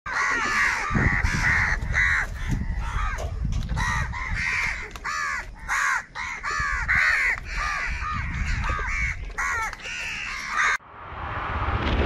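A flock of house crows cawing, many harsh calls overlapping one after another, over a low rumble. The cawing cuts off about a second before the end and a rising whoosh takes over.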